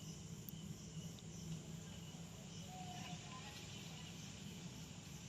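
Quiet background: a faint steady low hum, with a few faint short chirps.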